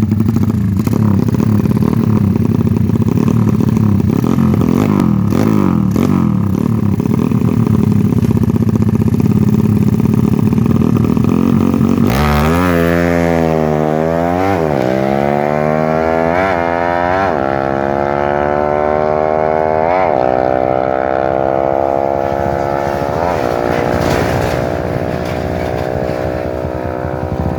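Motorcycle engine running. About halfway through the sound changes abruptly, and the throttle is blipped several times, the revs rising and falling, before settling into a steadier run near the end.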